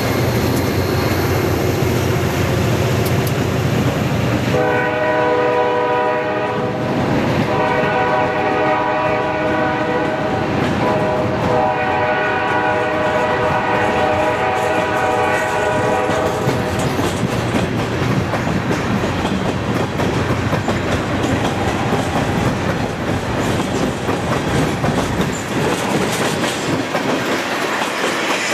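Freight train passing close by: diesel locomotives rumble past first, then tank cars roll by with wheels clicking over the rail joints. The train's air horn sounds three long blasts, starting about five seconds in and ending around seventeen seconds.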